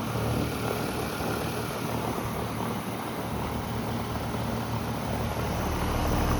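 Outdoor air-conditioner condensing unit running: a steady low compressor hum with fan noise, getting a little louder near the end.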